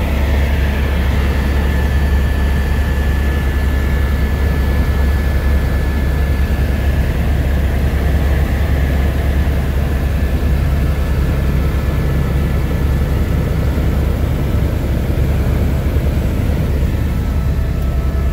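Helicopter heard from inside the cabin: a steady, loud low drone of engine and rotor with a thin high whine over it.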